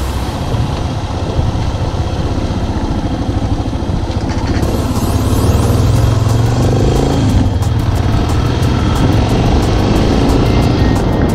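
1993 Yamaha XT600's single-cylinder four-stroke engine running steadily as the motorcycle rides along a dirt track. It gets a little louder about five seconds in, with a brief rise in revs around seven seconds.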